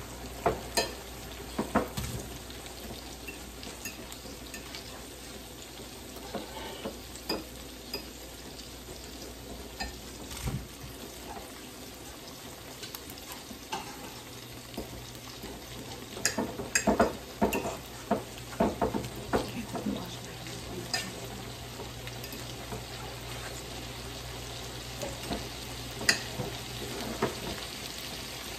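Sliced sausage frying in oil in a pan, with a steady sizzle. Scattered clicks and scrapes of a utensil stirring it, with a quick run of them a little past halfway.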